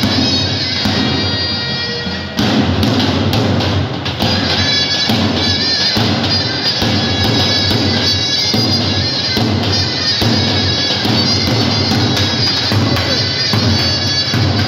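Turkish folk dance music played live on a davul bass drum with a shrill double-reed wind instrument, typical of zurna, carrying a sustained melody over steady drum beats. It gets louder about two and a half seconds in.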